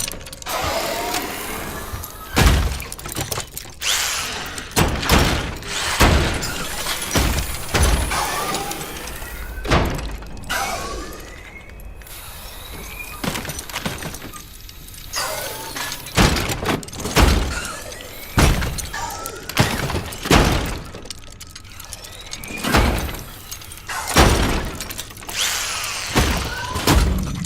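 Film sound effects of mechanical armour assembling around a body: a string of heavy metal clanks and thuds, one every second or two, with short whirring glides between them.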